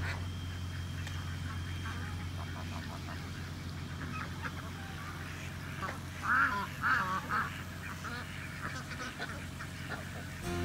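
Ducks quacking, with a run of three louder quacks about six to seven seconds in, over a steady low hum.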